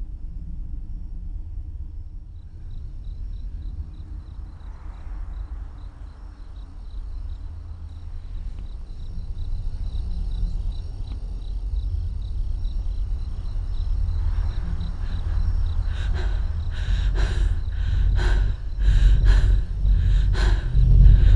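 A deep rumbling drone that slowly swells, with a faint steady chirring of night insects above it. In the last few seconds a quick run of sharp hits builds up.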